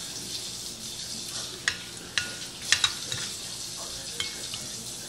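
A metal spoon and fork clinking against a ceramic bowl about five times, some clinks ringing briefly, over a steady hiss.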